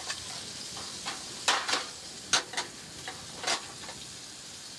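An ice-fishing spinning reel being cranked while playing a fish, giving a few sharp, irregular clicks and ticks over a steady hiss.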